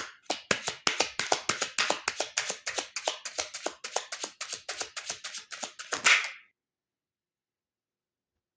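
A deck of tarot cards shuffled by hand: a quick, even run of crisp card clicks, about six a second, stopping about six seconds in.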